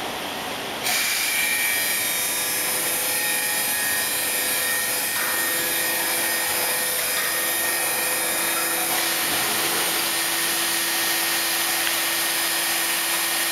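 Robotic wood-sanding machinery running, the sanding wheels and the ABB robot arm working a wooden workpiece: a loud, steady hiss that starts abruptly about a second in, with faint steady machine tones under it, and the hiss changes slightly in character about nine seconds in.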